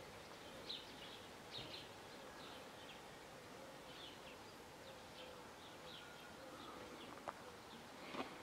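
Faint birdsong: short high chirps repeated every half second or so, over a faint steady hum, with two sharp clicks near the end.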